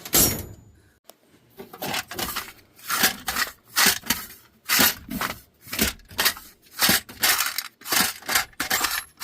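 Metal wrenches clinking and clattering one after another, about once a second, as they are put back in place.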